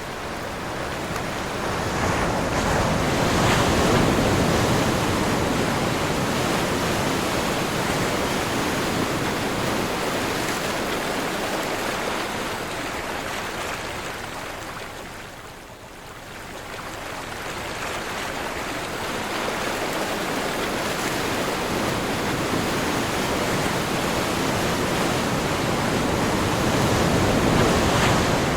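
Sea waves and surf in a steady wind. The surge swells about three seconds in, eases to a lull around the middle, then builds again near the end.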